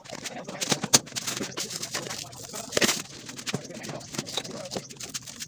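Irregular clicks, taps and rustles of hands working over a plastic food box while spooning sauce and sprinkling seasoning onto plucked birds, with sharper knocks about a second in and near three seconds in.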